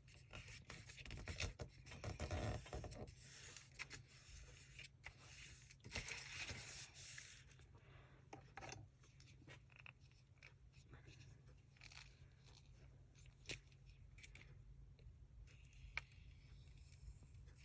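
Paper pages being handled, folded and creased by hand: faint rustling and scraping, busiest in the first seven seconds or so, then sparse light taps and ticks.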